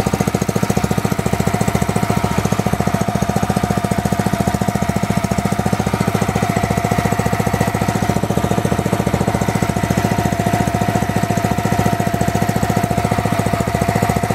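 Small single-cylinder petrol engine running steadily on white spirit, its propane feed shut off: an even, rapid firing beat at a constant speed.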